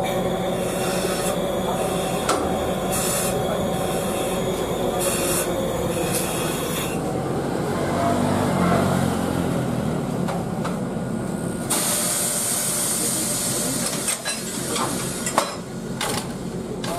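EF63 electric locomotive standing with its on-board equipment running: a steady mechanical hum holding several tones, with bursts of hissing in the first seven seconds and again around twelve seconds in.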